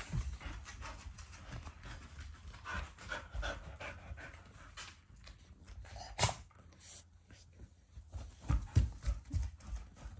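Dog panting, with scattered clicks and a sharp knock about six seconds in.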